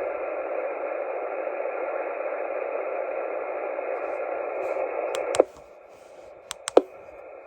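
Band-limited static hiss from a Xiegu G90 transceiver's receiver on the 11-meter band. About five seconds in, it falls suddenly to a much quieter noise floor, with a few sharp clicks around the change.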